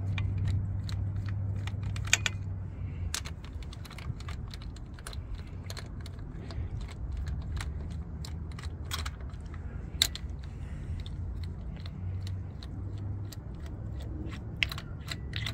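A ratchet and socket on a long extension clicking and tapping in irregular light clicks, with a few sharper ones, as the Jake brake housing bolts on a Detroit Series 60 engine are worked loose and spun out. A low steady hum runs underneath.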